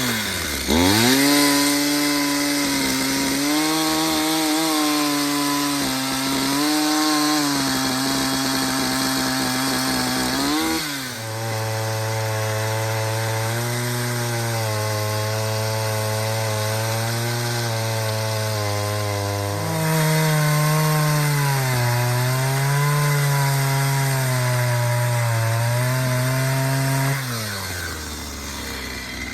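Homelite 340 two-stroke chainsaw cutting firewood, the engine note wavering under load. The pitch drops sharply about a third of the way through, lifts again later, and winds down near the end.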